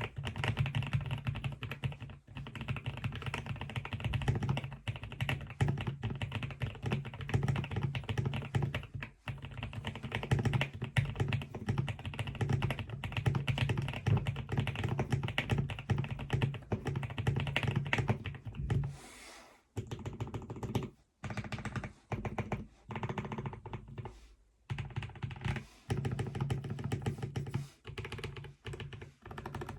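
Typing on a QK65 mechanical keyboard fitted with lubed Zealios V2 tactile switches: a fast, continuous run of keystrokes, then after a short pause about two-thirds of the way through, typing in shorter spurts with brief gaps between them.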